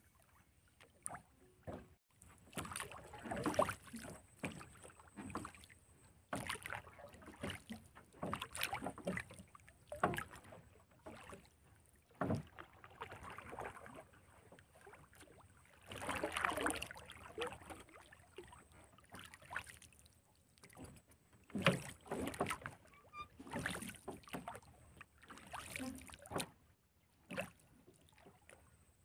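Water lapping and sloshing against the hull of a small wooden boat, in irregular bursts every second or two.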